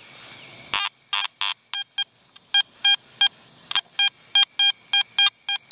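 Garrett AT metal detector giving a rapid string of short, same-pitched beeps, about four a second, as its coil is swept over a strong buried target.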